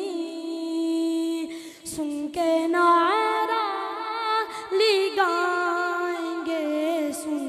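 A boy singing a naat unaccompanied into a microphone, holding long, wavering melismatic notes, with a short pause for breath a little under two seconds in.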